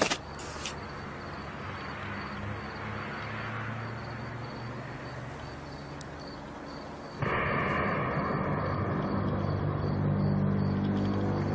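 A low, steady droning hum with a few pitched layers. About seven seconds in it cuts abruptly to a louder drone with a higher whine above it.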